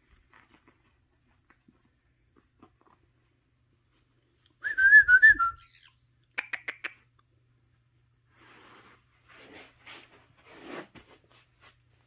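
Caique parrot giving a short, warbling whistle about halfway through, followed by a few sharp clicks and soft rustling of the sock fabric as it moves inside.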